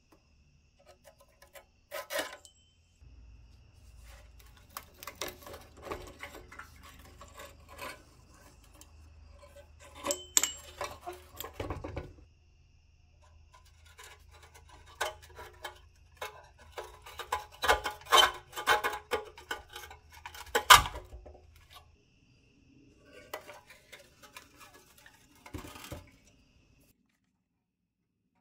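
Rusty pressed-steel parts of a 1959 Tonka dragline toy being handled: irregular metal clinks, scrapes and rattles with short pauses, the loudest clank about 21 seconds in.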